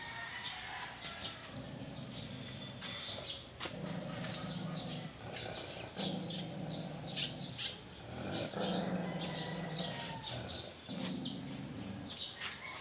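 Small birds chirping over and over in short, falling notes. A low droning sound about a second long comes back several times, roughly every two seconds.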